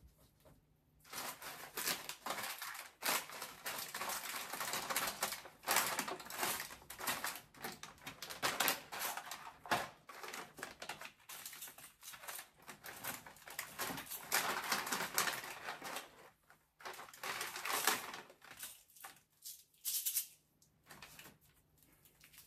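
Plastic snack bags and packages crinkling and rustling as they are handled and slid around on pantry shelves. The sound comes in irregular bursts with a few short pauses.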